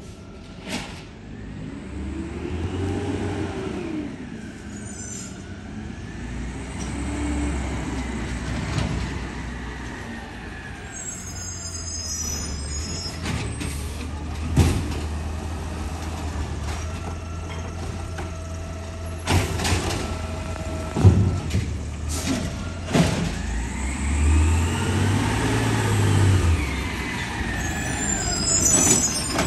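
Garbage truck engine revving up and falling back several times as the truck pulls along the curb. The air brakes hiss in short bursts midway and near the end, and a few sharp clunks come midway.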